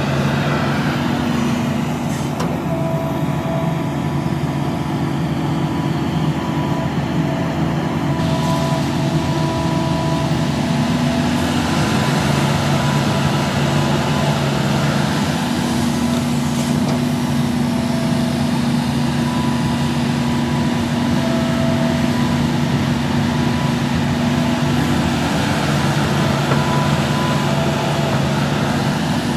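Hitachi ZAXIS 350H excavator's diesel engine running steadily, its note shifting up and down every few seconds as it works under load.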